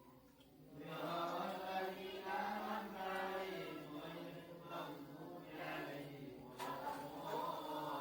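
Voices chanting, holding long steady notes.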